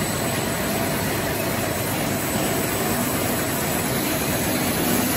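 A corn puff production line running, built around a DG75-II twin-screw food extruder: a steady, even machine noise with no rhythm or change.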